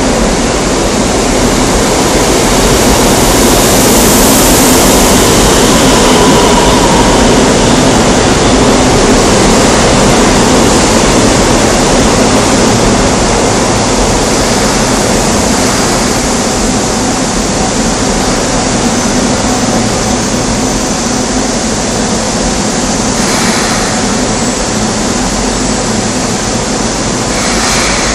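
Seoul Metro Line 2 old 2000-series subway train pulling into an elevated station: a loud, steady rush of wheel and running noise with a low hum, loudest a few seconds in, then easing off as the train slows to a stop alongside the platform.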